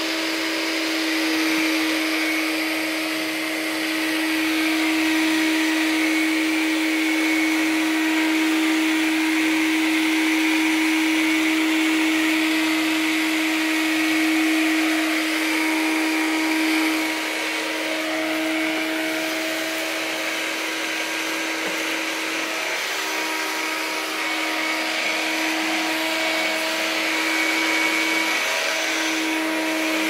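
Hoover Turbopower U2198 upright vacuum cleaner running steadily: a constant motor tone over the rush of air. The tone dips briefly a few times in the second half.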